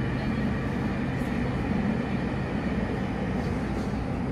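Cabin noise of a JR Kyushu 305 series electric train running through a subway tunnel: a steady low rumble of wheels and running gear.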